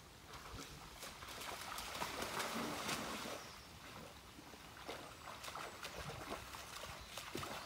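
Water splashing and sloshing as a Saint Bernard wades through a shallow pond, loudest about two to three seconds in.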